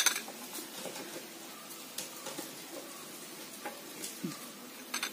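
Faint wet rubbing of fingers spreading a coffee face pack over the skin of the neck, with small scattered ticks and a sharp click right at the start.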